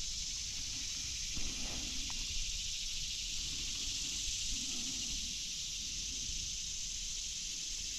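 Outdoor ambience of a steady chorus of insects, an even high hiss, with faint low rustling beneath.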